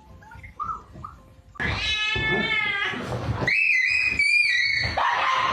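A cat meowing: two long, drawn-out meows, the first about one and a half seconds in and a second, higher one a little after halfway.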